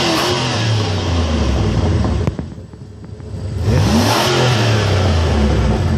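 1998 Jeep Laredo's 5.2-litre V8 revving through its stock exhaust, both catalytic converters still in place. The engine is held at high revs, falls back for about a second just after two seconds in, then revs up again and holds.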